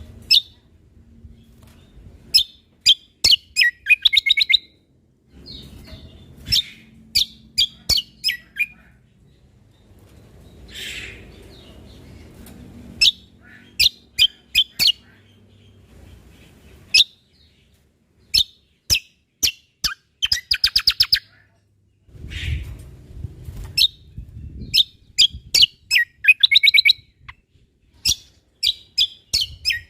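Cucak kombo (kecial kombok) songbird singing: repeated short phrases of rapid, sharp, high chirps, several notes to a phrase, with brief pauses between, over a faint low rumble that comes and goes.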